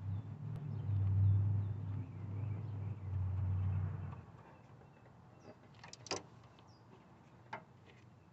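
A handheld electric power tool's motor runs in two pushes of about two seconds each and then stops suddenly, driving in the bolt that holds the A/C line to the compressor. A couple of light clicks follow.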